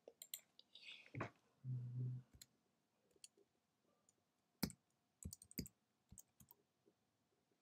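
Faint, scattered computer mouse clicks, some single and some in quick little runs, with a short low hum about two seconds in.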